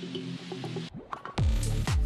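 Background electronic music: a rising noise sweep over steady notes cuts off about a second in, then deep bass kicks with a falling pitch come in near the end.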